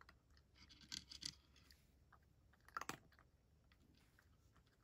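Cat crunching dry kibble, with faint crunches about a second in and a louder run of crunches near three seconds.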